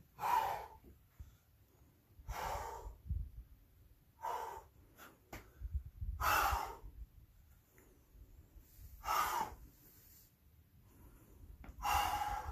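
A boulderer's sharp, forceful exhalations from the effort of hard climbing: six breaths, about two seconds apart. A few faint clicks fall between them.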